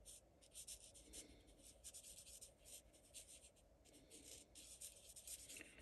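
Faint scratching of a Stampin' Up! Blends alcohol marker tip on cardstock: quick short colouring strokes, several a second.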